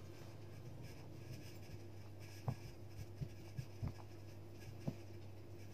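Spatula stirring and scraping stiff, crumbly cheese-butter-flour dough in a plastic bowl, faint, with several short knocks against the bowl in the second half, over a low steady hum.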